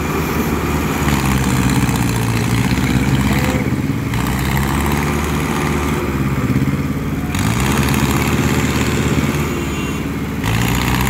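Diesel tractor engines working hard under load as one tractor tows a stuck Mahindra Arjun 605 and its loaded trailer through deep mud on a rope. The engine note revs up about seven seconds in and again near the end.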